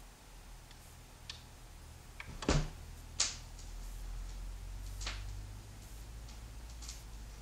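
Turntable stylus riding the lead-in groove of a vinyl LP before the first track: a low steady hum under faint surface crackle, with a few sharp pops, the loudest about two and a half and three seconds in and another about five seconds in.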